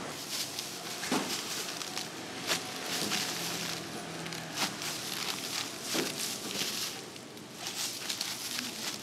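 Crisp rustling and crackling of thin, dry spring roll wrappers being peeled apart and stacked by hands in plastic gloves, with a few sharp clicks.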